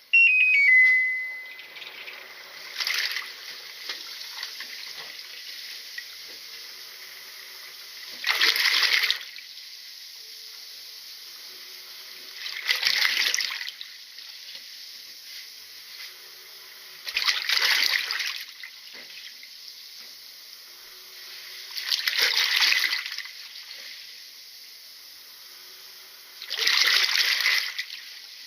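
A washing machine with water in the tub: a short electronic beep at the start, then a splash of water about every four to five seconds, each lasting about a second, over a quieter steady background.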